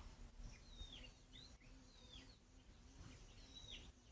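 A small bird chirping faintly: a series of short high calls, each sliding downward in pitch, about one a second.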